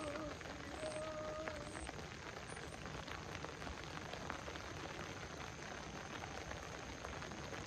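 Steady rain falling, with the sharp ticks of single drops landing close by.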